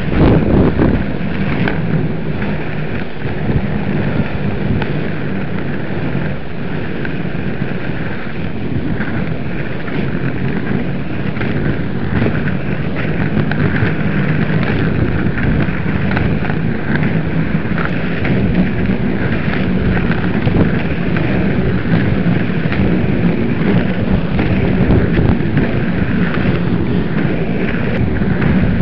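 Inline skate wheels rolling over rough tarmac: a steady, loud rumble with constant fine clatter.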